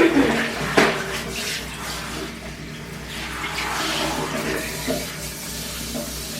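Clothes being hand-washed in water: splashing and sloshing, with a couple of sharper splashes or knocks in the first second, over a steady low hum.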